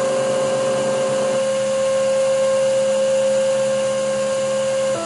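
Emco Turn 220 P CNC lathe running, its motors giving a steady whine of several held tones. Some of the tones drop out about a second and a half in, and near the end the main tone cuts off as the motor pitch changes.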